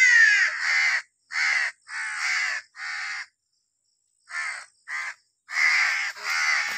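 Crow cawing repeatedly: about eight harsh caws, four and then four more after a pause of about a second.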